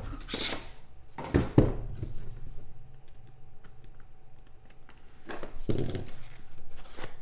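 A 2016 National Treasures football card box being handled and opened by hand: a few sharp knocks in the first two seconds, then a scraping rustle about five seconds in as the box is slid and pulled apart.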